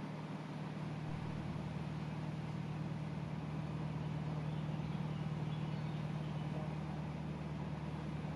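A narrowboat's diesel engine running steadily under way, a constant low hum.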